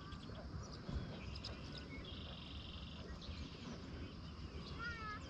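Faint outdoor ambience with birds calling: scattered chirps, a short buzzy trill about two seconds in, and a quick series of chirps near the end, over a low rumble.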